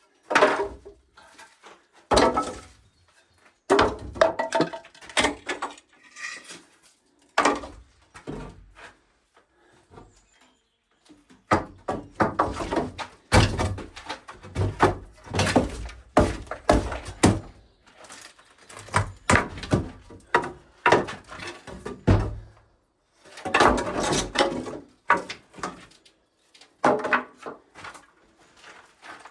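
Irregular thuds, knocks and clattering from hands-on building work, with denser runs of clatter around the middle and again about three quarters of the way through.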